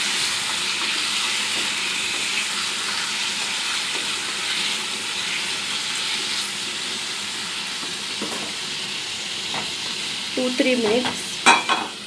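Marinated mutton pieces sizzling steadily in hot oil in a kadhai on high flame while being stirred. Near the end come a few metal clanks as a steel lid goes onto the pan.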